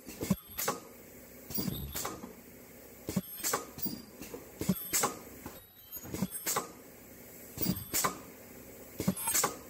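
Ultrasonic welding machine for N95 mask ear loops cycling over and over: its pneumatic cylinder drives the welding head down and back up, making sharp clacks, mostly in pairs, every second or two.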